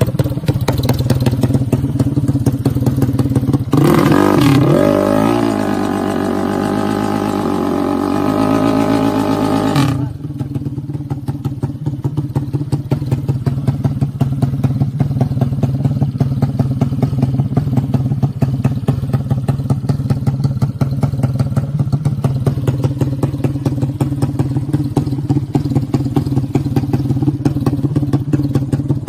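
Motorcycle engine running with a fast, even pulsing. About four seconds in, a motorcycle engine revs hard, its pitch climbing, for some six seconds, then drops back abruptly to the steady pulsing.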